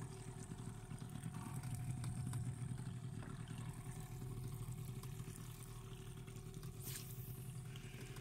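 Boat motor running steadily at an even pace, a low drone with no change in revs.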